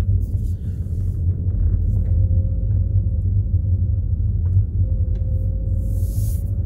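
Steady low rumble of tyres and engine heard inside a 2020 Škoda Superb's cabin while driving, with a faint steady hum above it. A brief hiss comes through about six seconds in.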